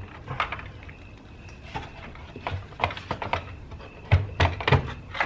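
Plastic clicks and knocks of a Rain Bird ESP sprinkler controller's faceplate being unplugged and pulled out of its cabinet: a few scattered sharp knocks, then a quick cluster of louder ones about four seconds in.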